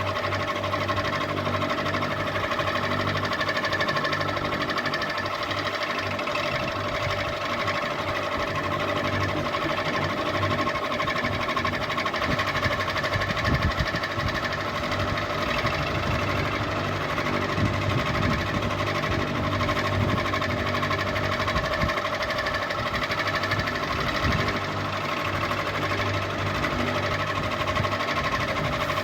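Ceiling fan running steadily: a motor hum under a fast, even mechanical clatter.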